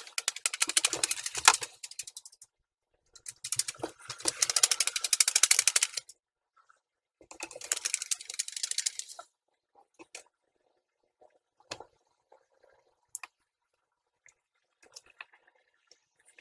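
A sheet of paper fanned rapidly in front of the face, flapping in a fast, even rattle, in three spells of a few seconds each, to dry glued-down eyebrows; a few faint scattered clicks follow.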